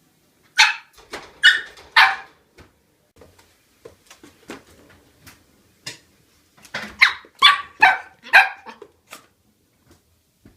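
Shetland sheepdog puppy barking: three sharp, high barks, a stretch of faint clicks, then a quick string of about five more barks.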